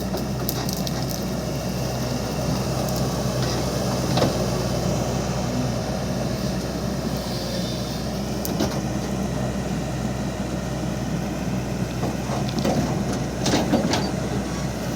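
Diesel excavator engine running steadily under work, with a few scattered knocks as it digs.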